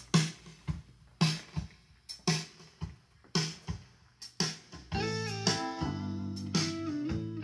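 Guitar-led song played through Infinity SM62 bookshelf speakers driven by a LEPY LP-2020A amplifier. Sparse plucked notes and hits ring out about twice a second, then fuller guitar and bass chords come in about five seconds in and the music gets louder.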